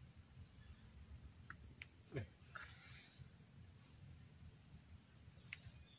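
Insects chirring in a steady, high-pitched drone, with a few faint ticks and a brief downward-sliding sound about two seconds in.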